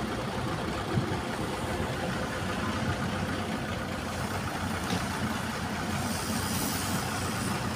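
Heavy diesel engine of earthmoving machinery running steadily at idle, with no revving.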